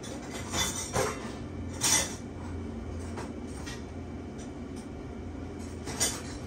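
A few short light clinks or knocks, the loudest about two seconds in and another near the end, over a steady low hum.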